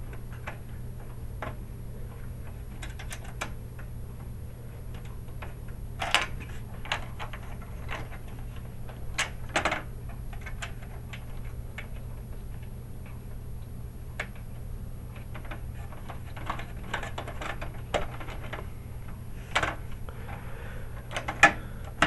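Screw being fastened by hand into the graphics card's metal bracket on the computer case: irregular small metallic clicks, ticks and scrapes, a few louder knocks among them, over a faint steady low hum.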